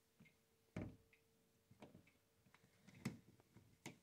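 Ridgeway Tempus Fugit grandfather clock ticking faintly, about one tick a second, with a heavier low knock about a second in.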